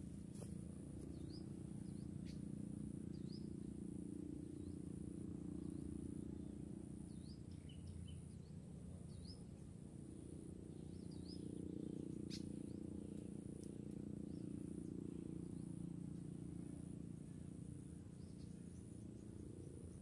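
Faint outdoor ambience. An insect trills steadily high up in even pulses, and short rising bird chirps come and go. Under them a low rumble swells and fades twice, and a few sharp clicks sound, one about halfway through.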